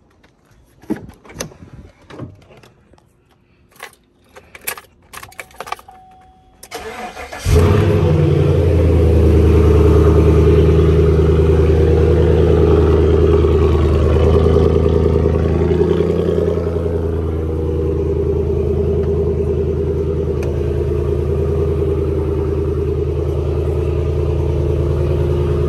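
A few scattered clicks and knocks, then about seven seconds in a lifted pickup truck's engine starts abruptly and runs steadily and loudly.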